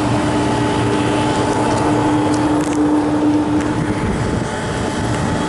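Walk-in freezer condensing unit running: a steady hum from the compressor and condenser fan over loud rushing fan noise, the hum dropping out briefly about four seconds in. The condenser coil is plugged with dust, which holds the head pressure high, at about 341.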